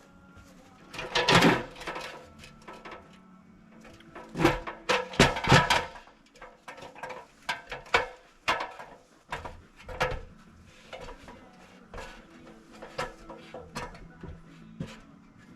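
Irregular knocks, clatter and rubbing of tools and materials being handled for a wood repair, with louder bursts about a second in and again around five seconds in.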